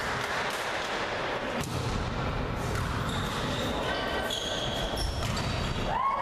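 Indoor volleyball rally: the ball is struck sharply twice, and sneakers squeak in short high chirps on the court floor as the players move. Before this a hiss of applause dies away, and a voice shouts rising in pitch at the very end.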